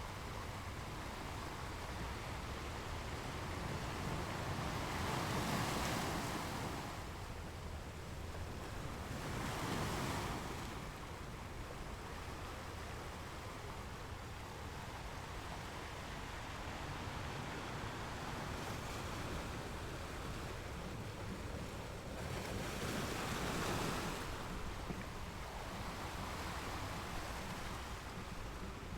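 Ocean surf: a steady wash of waves, with three waves swelling louder and breaking, about five, ten and twenty-three seconds in.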